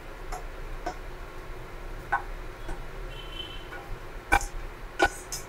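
Wooden spatula knocking and scraping against a pan rim and a steel mixer-grinder jar while cooked tomato-onion mixture is scraped into the jar. It makes a string of scattered light taps and clicks, the sharpest a little after four and five seconds in.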